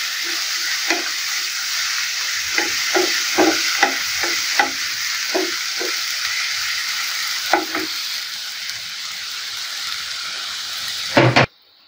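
Julienned potato strips sizzling steadily as they fry in oil in a frying pan, with a wooden spatula knocking and scraping against the pan now and then. Near the end comes one louder knock, then the sound cuts off suddenly.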